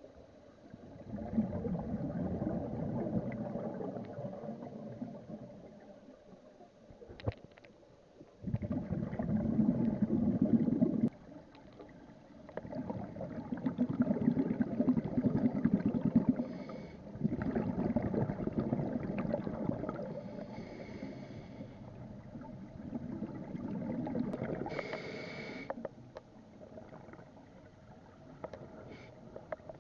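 A scuba diver's exhaled bubbles rushing out of the regulator, heard underwater. There are about five gurgling exhalations of a few seconds each, with quieter pauses between them for the inhales.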